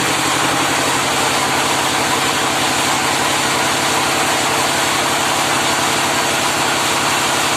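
25 kVA generator set's engine running steadily with an even, fast pulse; the set is too weak to turn a 1 hp three-phase paddle wheel.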